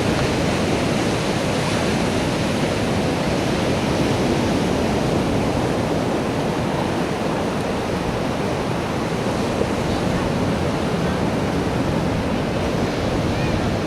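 Steady rushing noise of surf on a beach, even throughout, with no firework bangs.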